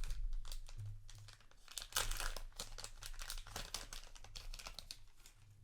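Trading card booster pack wrapper crinkling as it is handled and torn open by hand, with the loudest tearing about two seconds in.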